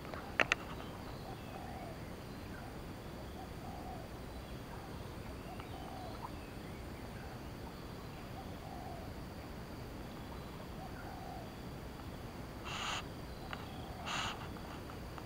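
A bird giving short, low hoots, one every two seconds or so, over a steady outdoor background. A sharp double click about half a second in and two short rasping bursts near the end.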